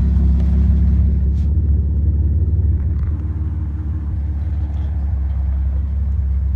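BMW E30 engine idling steadily, a low even rumble that drops slightly about three seconds in.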